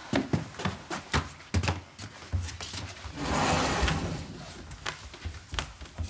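Footsteps and light knocks on a wooden floor as people walk indoors, with a longer scraping rush about three seconds in.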